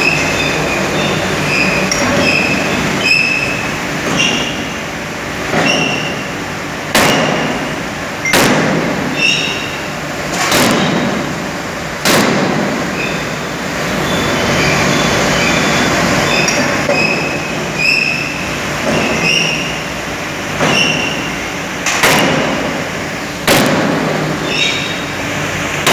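Flywheel-driven mechanical forging presses running in a forge shop: a steady machine din with short high squeals about once a second. Sharp metal bangs ring out repeatedly as the presses strike hot metal, several of them about a second and a half apart.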